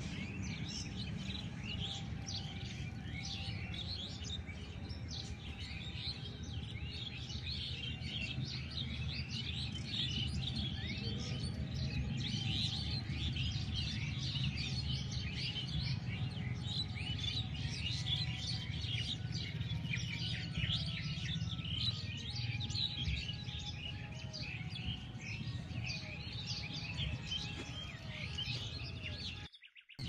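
Many small birds chirping and twittering at once in a dense, continuous chorus, over a steady low rumble; the sound drops out briefly near the end.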